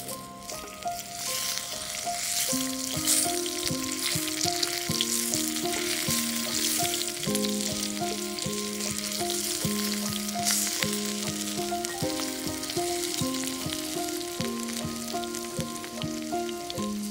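Oil, salt and potato peels sizzling and crackling hard in a hot iron pan: the peels burning off to season the pan and build its patina. The sizzling swells about a second in, and background music plays under it.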